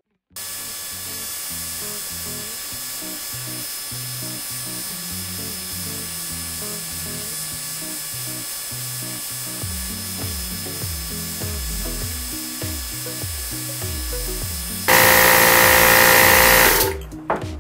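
Background music with a stepping bass line. Near the end a Yong Heng water-cooled HPA compressor runs loudly for about two seconds, unloaded on its break-in run with the valves open so it builds no pressure, then cuts off suddenly as it is switched off.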